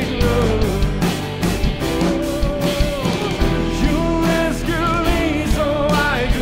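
Contemporary worship band music: drums keeping a steady beat under bass and guitars, with a wavering melodic line above.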